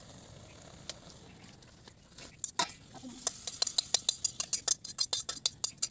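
A utensil scraping and knocking against a wok while the cooked Malabar spinach and curd curry is emptied into a steel bowl. Quick scrapes and taps begin about two seconds in and come about four or five a second, getting louder towards the end.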